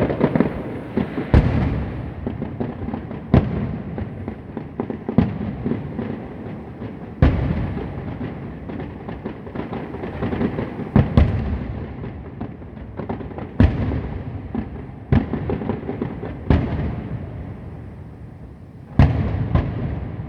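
Fireworks going off: a steady crackle and rumble of many shells, with loud booming bangs every second or two.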